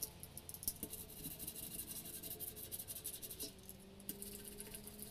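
Rapid irregular scratching and crinkling as a truck-tyre repair patch is rubbed down onto the glued inner liner, its clear plastic film rustling under the hand and tool.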